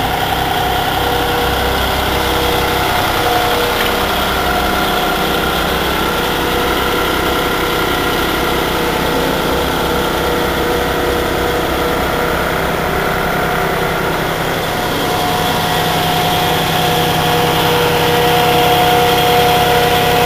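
Concrete mixer truck's diesel engine running steadily. Its pitched hum grows a little stronger about fifteen seconds in.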